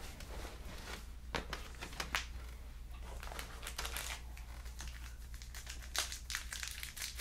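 Wrapper of a Panini Contenders basketball card pack crinkling and tearing as it is opened by hand: an irregular run of sharp crackles.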